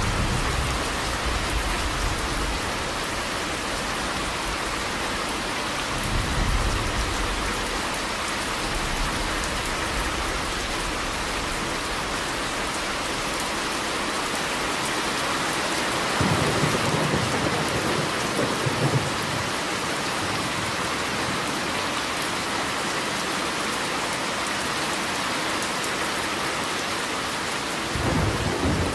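Steady rain falling, with low rolls of thunder rumbling in several times: near the start, about six seconds in, for a few seconds past the middle, and again near the end.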